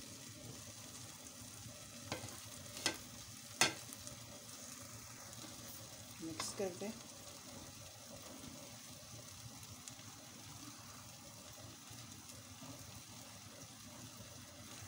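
Pot of pasta at a rolling boil, a steady bubbling hiss, as a spatula stirs it. A few light knocks against the pot come about two to four seconds in.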